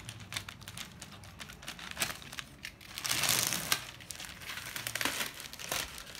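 Clear low-density polyethylene plastic bag crinkling and crackling as hands handle it and pull it back from a cardboard box, with a louder stretch of rustling about three seconds in.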